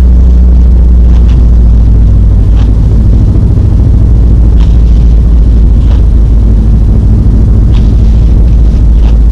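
2017 Subaru STI driving: a loud, steady low rumble of engine and road noise, with faint ticks every second or two.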